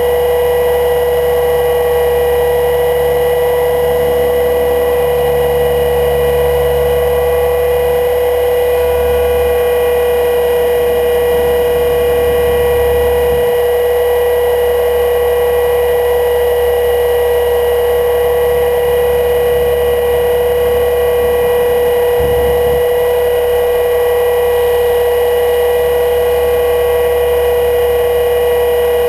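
HK 500 GT electric RC helicopter in flight, heard from its on-board camera: its Scorpion 1600KV brushless motor and drive gears whine at a steady, unchanging pitch. Underneath is a low rumble of wind that rises and falls in gusts.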